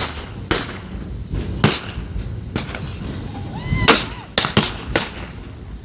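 Sharp gunshot cracks from blank-firing guns, about eight of them, with several in quick succession around four to five seconds in. Beneath them runs the low rumble of a moving train, with short high wheel squeals.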